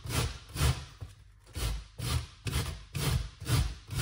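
A raw cauliflower head rubbed back and forth on a handheld stainless steel grater, making rasping strokes about twice a second, with a short pause about a second in.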